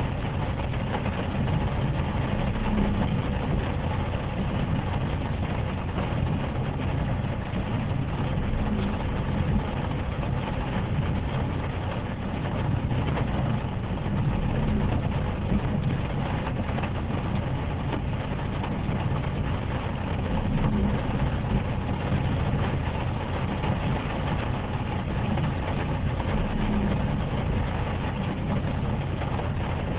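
Steady engine and tyre noise heard inside a car driving on a wet road, with the windscreen wipers sweeping about every six seconds.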